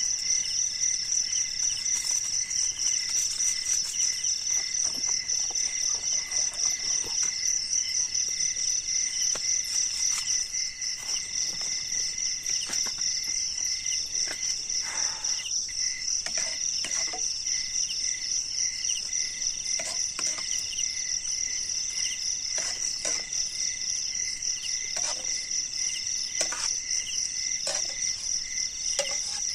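A dense chorus of night insects trilling steadily, with a fast-pulsing high trill above lower steady trills. Now and then a short scrape or tap of a spoon in a wok cuts through.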